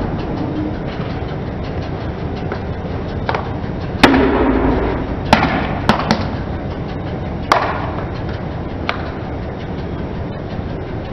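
Car tyre slowly rolling over a small plastic LED desk lamp and crushing it: one loud crack about four seconds in, then several sharper snaps and smaller cracks of breaking plastic over the next few seconds, over a steady low rumble.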